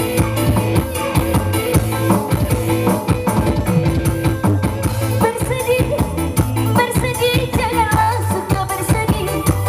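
Live band music played over a stage sound system, with a steady beat and a strong bass line. A voice begins singing a bending melody about halfway through.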